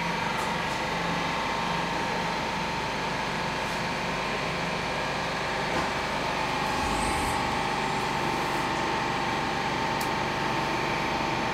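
Steady hum and rumble of equipment inside a Stockholm Metro C14 subway car, with a faint constant whine throughout.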